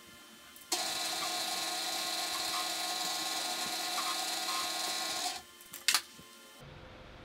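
Countersink bit cutting a chamfer into the ring end of a steel wrench under a running machine spindle: a steady, loud cutting hiss with a fixed tone for about four and a half seconds that stops abruptly. Then two sharp metallic clinks as the wrench is handled.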